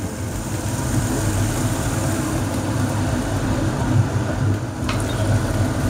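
Steady low mechanical hum with an even hiss over it, and a light click about five seconds in.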